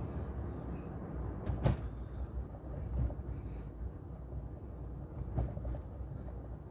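Steady road and engine rumble inside a moving car, with a few sharp thumps, the loudest about one and a half seconds in.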